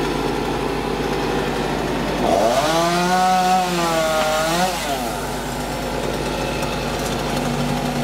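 Chainsaw revving up about two seconds in, held at high speed for a couple of seconds with a slight dip in pitch, then dropping back to idle. A steady engine drone runs under it throughout.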